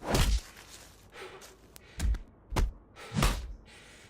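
Four heavy thumps, each with a short rush of air: one at the start, then a pause, then three more about half a second apart after about two seconds.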